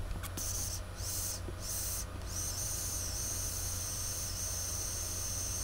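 A butane lighter hissing as it lights a pipe of weed: three short bursts, then one long steady hiss held for about three and a half seconds.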